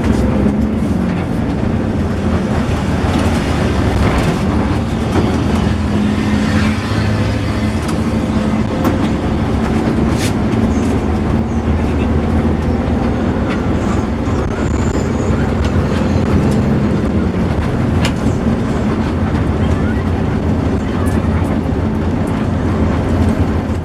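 Intercity coach bus driving along, a loud, steady drone of engine and road noise with a low hum.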